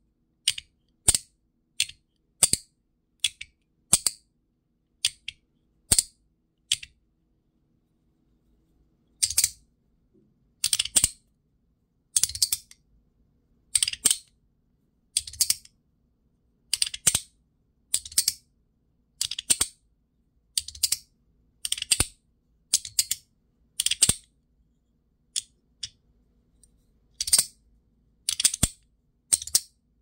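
Metal magnetic fidget slider being thumbed back and forth, its plates snapping into place with a sharp click about once a second. For the first several seconds the clicks are short and crisp. After a brief pause they turn into slightly longer, rougher clacks.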